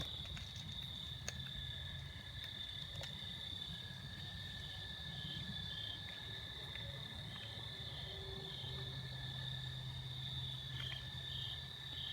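Night insects, such as crickets, calling in the woods: a steady high-pitched trill, with a second caller's short chirps repeating at a regular pace over it.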